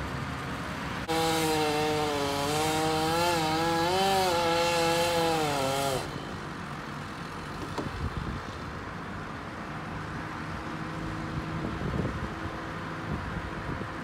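Chainsaw running at high revs for about five seconds, its pitch wavering and sagging, then stopping suddenly. After it, an engine hums low and steady.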